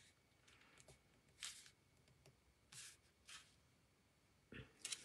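Faint rustling and brushing of cardstock as hands press and fold a glued paper card: a few short soft swishes, the loudest near the end.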